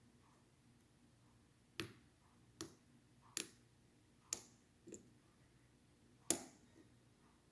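Sharp metal clicks from a lock pick working the top pin stack of a Schlage Primus Everest lock cylinder, six in all at uneven intervals, the last the loudest.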